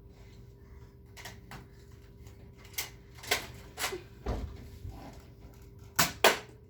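Nerf blasters clacking as they are handled and fired: a scattering of short sharp clacks in the second half, the two loudest close together near the end.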